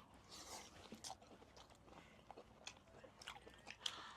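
Faint eating sounds of someone chewing abalone: soft, irregular chewing with small clicks and ticks.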